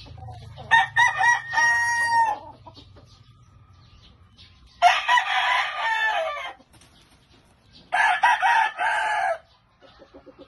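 Gamefowl roosters crowing: three loud crows, each about a second and a half long, with faint clucking in the gaps.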